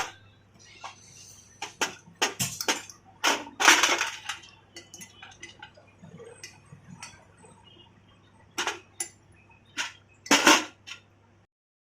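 Irregular metallic clinks and knocks of tools and engine parts being handled during motorcycle engine work, loudest in clusters around 3 to 4 seconds in and again near the end; the sound cuts off suddenly shortly before the end.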